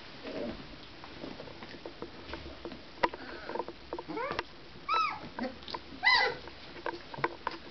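24-day-old Basset Artésien Normand puppies yipping and squeaking as they play-fight, over soft scuffling. A few short high calls rise and fall in pitch between about four and six seconds in, and the loudest comes near six seconds.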